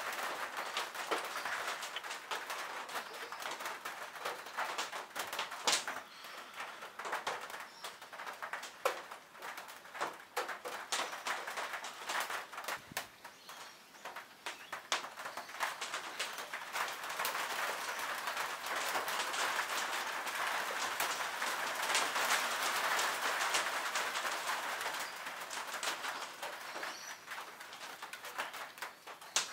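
Small hand-tool work on a wooden lure body: light scratching, taps and many short sharp clicks of a pen and small pliers against the wood and a wire eye. A bird calls in the background.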